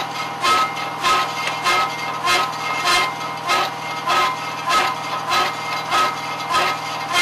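Hydraulic coring bit boring into a concrete seawall, grinding in an even rhythm of about three strokes every two seconds over a steady hum from the hydraulic power unit.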